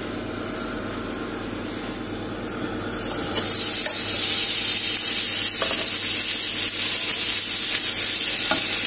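Bone-in club steak searing in a smoking-hot ridged grill pan: a low steady hum for about three seconds, then a loud sizzle starts suddenly as the meat meets the hot metal and keeps going.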